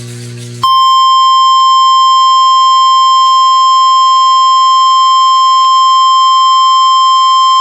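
NOAA Weather Radio warning alarm tone: a loud, steady single-pitch tone near 1 kHz that starts abruptly a little under a second in, after a brief low buzz, and holds unbroken. It is the attention signal that comes before an emergency warning, here a flash flood warning.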